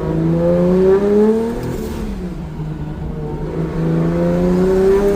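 Turbocharged Toyota 2JZ inline-six pulling under light acceleration: the engine note rises, drops at a gear change about two seconds in, then rises again.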